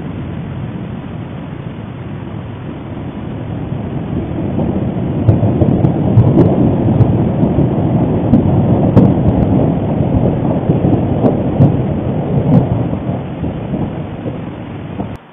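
Popocatépetl volcano erupting an ash column: a deep, continuous rumbling that swells about five seconds in, with scattered sharp crackles, and cuts off abruptly near the end.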